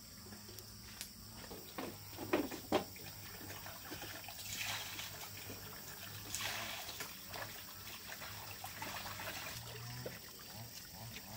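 A metal wok knocks a few times as it is handled, then water is poured from a plastic scoop, trickling and splashing into a plastic bucket.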